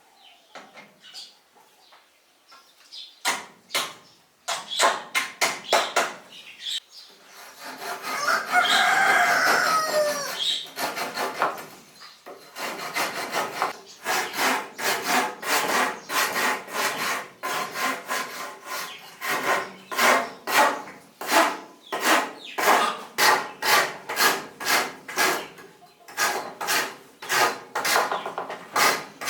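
Hand saw cutting wood in steady back-and-forth strokes, with a rooster crowing once about eight seconds in.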